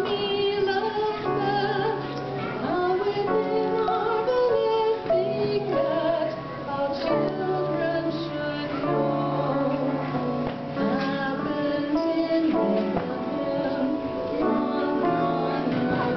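A woman singing a Christmas song solo, with instrumental accompaniment.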